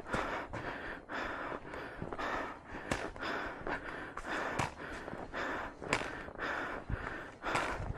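A hiker breathing hard and fast from the exertion of climbing a steep mountain trail, with a rough breath in or out about once a second and a few sharp knocks in between.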